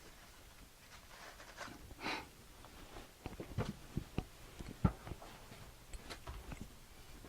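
Scattered light clicks and knocks of small metal parts being handled and moved about on a workbench, with a brief rustle about two seconds in and a run of quick knocks past the middle.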